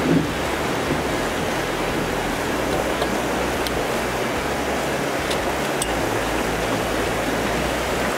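Steady rushing of river current flowing around a drift boat, with a few faint ticks.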